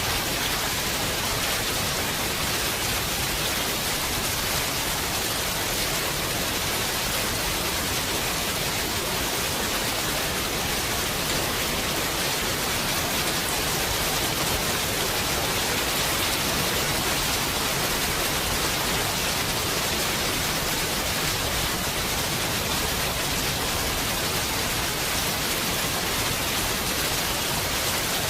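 Heavy rain falling steadily, a dense even hiss without thunder or any single louder drop.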